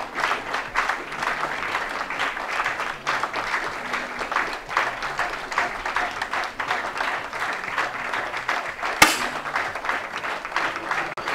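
Crowd applauding steadily in a hall, with a single sharp crack about nine seconds in.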